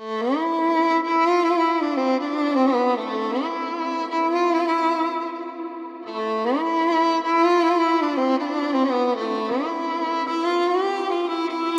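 Solo violin playing a slow, ornamented melody that slides up into its notes, as an instrumental introduction; the same phrase comes twice, the second starting about six seconds in.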